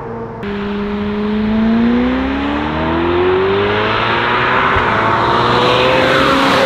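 Ferrari F8's twin-turbo V8 through a Novitec N-Largo exhaust system, accelerating hard with its pitch rising steadily. Near the end the pitch drops as the car passes by.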